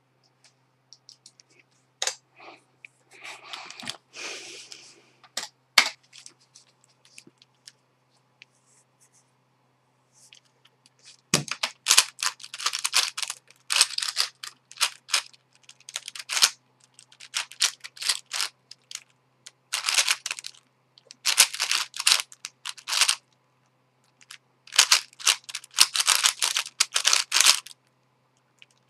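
Witeden 3x3x9 puzzle cube being turned by hand: bursts of rapid plastic clacking from its layers, in groups of a second or two. Before them come a few scattered clicks and a short rustle in the first few seconds, and a single thump about 11 seconds in.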